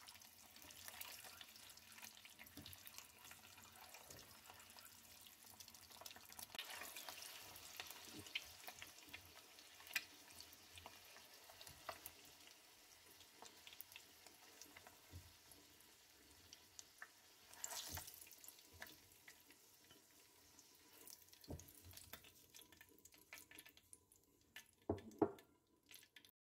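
Peeled hard-boiled eggs frying in oil in a nonstick pot: faint sizzling and crackling, with scattered clicks and scrapes of a spatula against the pot and a couple of louder knocks near the end.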